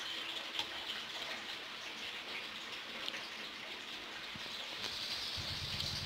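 Faint steady hiss with a few light clicks. A low droning hum comes in near the end.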